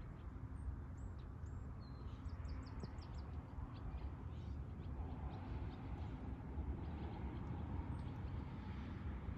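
Small birds chirping faintly, with a quick run of high chirps about two seconds in, over a low steady outdoor rumble.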